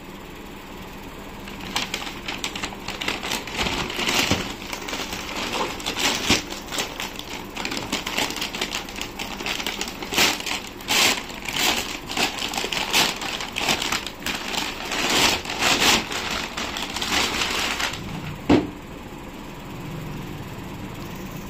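Brown paper mailer bag crinkling and tearing as it is opened by hand: a busy, irregular crackle of rustling paper that stops a few seconds before the end. Just after it comes a single sharp thump, the loudest moment.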